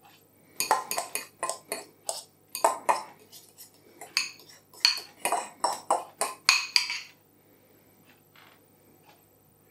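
Metal fork scraping and clinking against a ceramic bowl as a breadcrumb topping is scraped out of it, a quick irregular run of strokes that stops about seven seconds in.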